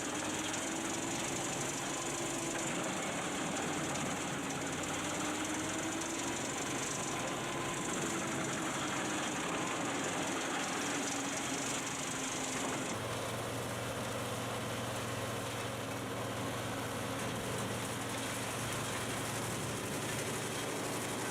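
Heavy machinery engine running with steady mechanical noise and a wavering engine note. About two-thirds of the way through the sound changes abruptly to a steadier, deeper running note, as a different machine takes over.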